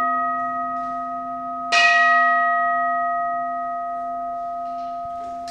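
Buddhist standing bowl bell (kin) struck once, about two seconds in, ringing with several clear steady tones that fade slowly, over the still-sounding ring of the previous strike. It is struck to close the chanted liturgy.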